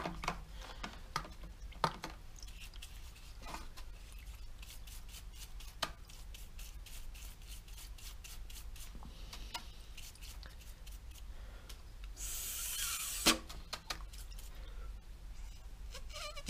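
Small carburettor parts handled on a workbench: scattered light clicks and taps. About twelve seconds in comes a short hiss of aerosol cleaner spray lasting about a second, ending in a sharp knock.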